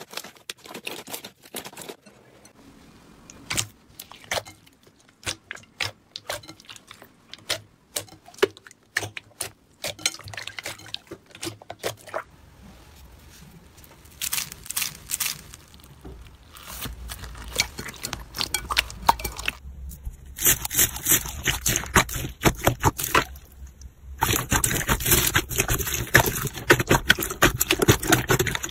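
Slime being handled in a series of clips: scattered sticky clicks and pops, turning into dense crackling and crunching near the end.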